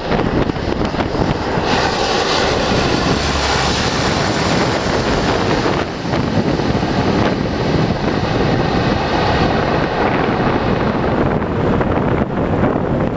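Canadair water bomber's engines droning as it flies low away over the lake, loudest a couple of seconds in. Heavy wind buffets the microphone throughout.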